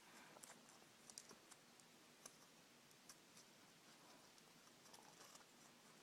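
Faint, scattered light clicks of small plastic Lego pieces being handled and fitted together, a dozen or so irregular ticks over low background hiss.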